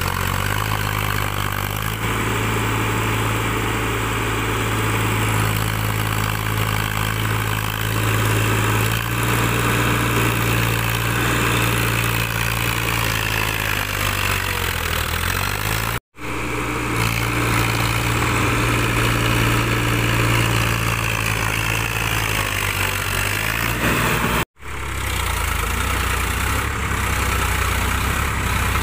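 Powertrac Euro 50 tractor's three-cylinder diesel engine running hard under load as it tows a tractor stuck in deep mud. The engine note sags in pitch and recovers a couple of times, and the sound cuts out for an instant twice.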